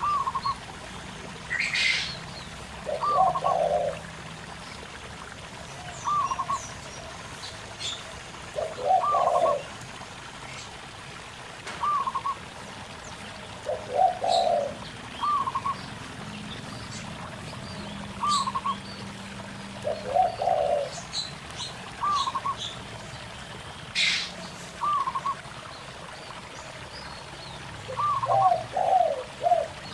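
Zebra doves (perkutut) and spotted doves (tekukur) cooing back and forth. A short coo repeats about every two to three seconds, answered every five or six seconds by a lower rolling coo, over the steady gurgle of a stream, with a few thin chirps from small birds.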